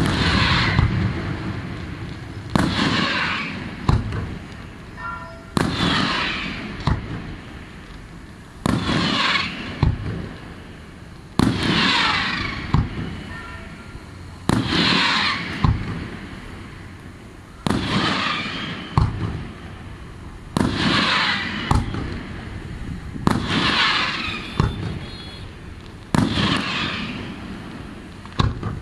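Daytime fireworks display: a loud burst about every three seconds, ten in all. Each burst trails off in about a second of fading noise, and a smaller pop follows about a second later.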